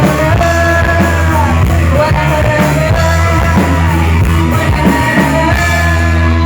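Rock band playing live, with a voice singing over steady drums and bass.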